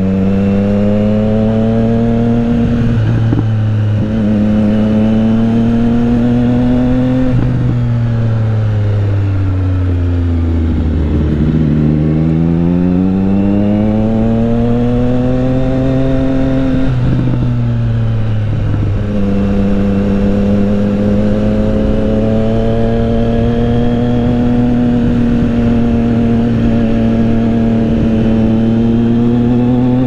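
Motorcycle engine heard from the rider's seat while riding a winding road. The revs fall around ten seconds in and climb back up, dip again near seventeen seconds, then run fairly steady.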